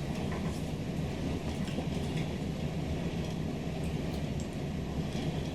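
Steady low hum of room air conditioning, with a few faint clicks from eating.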